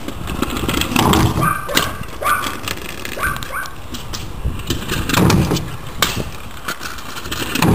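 Kick scooter wheels rolling on concrete, with a sharp clack about six seconds in as a rider lands. A dog barks several short times in the first few seconds.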